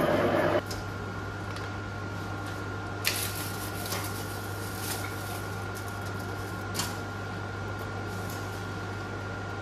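A twist drill cutting steel plate on an Elliot Victoria V2 milling machine stops about half a second in. After it, a steady machine hum with a thin high whine carries on, with a few light metallic clinks as metal swarf is raked off the mill table.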